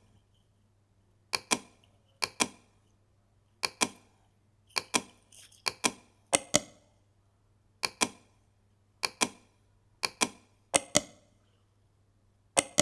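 Computer mouse clicking: about ten sharp clicks spaced a second or so apart, most heard as a quick press-and-release pair.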